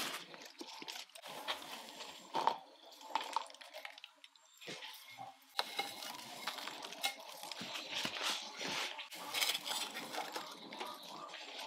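Small garden trowel scraping and tipping potting soil into a ceramic plant pot: gritty scrapes with light clinks, quieter for a moment near the middle and busier in the second half.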